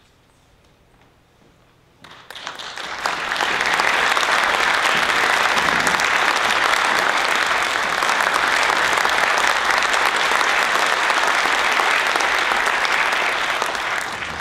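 Audience applauding. The clapping starts about two seconds in, swells within a second or so to a steady level, and begins to die away near the end.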